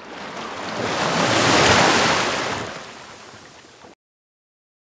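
A rushing whoosh of noise that swells up, peaks under two seconds in, fades away, and cuts off abruptly about four seconds in.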